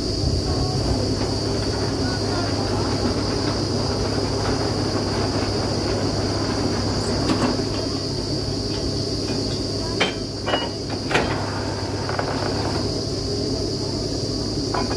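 Truck-mounted borewell drilling rig running steadily: a low engine drone with a steady high whine above it. A few sharp clanks come about two-thirds of the way through.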